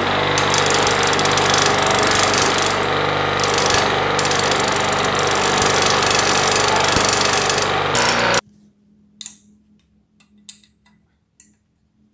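Bench grinder running with a steel scissor blade held against its grinding wheel: a loud, steady grinding hiss over the motor's hum. It cuts off abruptly about eight seconds in, leaving a few faint clicks.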